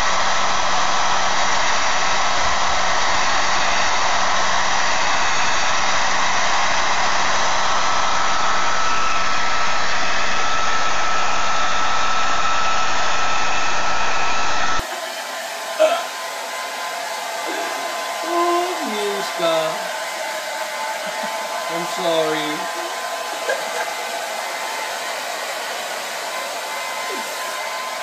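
An electric hair dryer blowing steadily, with a constant whine in the noise. About fifteen seconds in it cuts to a quieter, steady blowing with a hum. A few short, pitch-bending vocal sounds come through it over the next several seconds.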